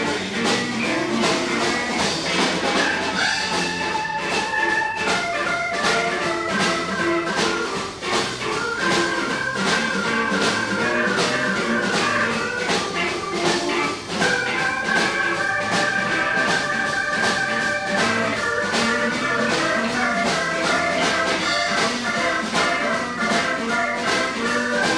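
Live blues band playing an instrumental passage without vocals: electric guitar, electric bass, drums and keyboard over a steady beat.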